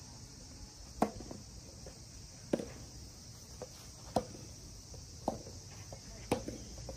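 Tennis rally: a serve about a second in, then the ball struck back and forth by rackets, five sharp hits spaced a second or so apart, with fainter bounces between them.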